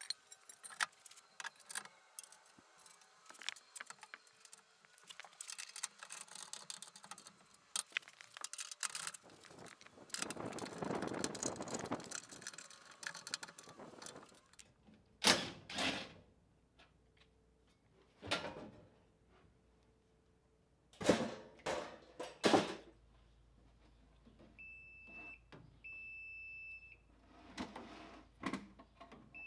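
Clatter and sharp knocks from metal mounting brackets being handled on concrete, the loudest strikes about halfway through. Near the end a non-contact voltage tester gives short, high, steady beeps twice, then once more, at the breaker panel.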